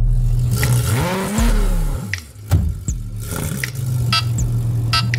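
A car engine rising in pitch and falling back once, over a steady low hum.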